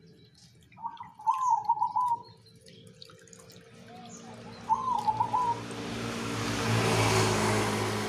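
A zebra dove (perkutut) cooing in two short phrases, about a second in and again near the five-second mark. A motor vehicle passes behind it, its engine noise swelling from about four seconds in and loudest near the end.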